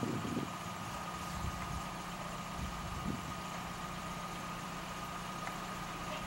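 A steady low engine-like hum, as of an engine idling, under a constant high-pitched tone.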